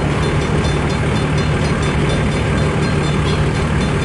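Freight cars of a long mixed-freight train rolling past close by: a steady rumble of steel wheels on rail with a continuous low hum and light, regularly repeating clicks.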